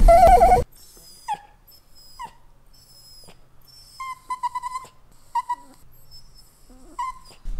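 Italian greyhound whining: a loud wavering whine that breaks off about half a second in, then a series of short, high whimpers, with a quick string of them about four seconds in.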